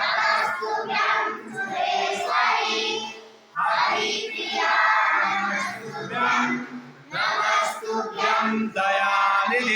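A group of children singing together in phrases, with short breaths between them.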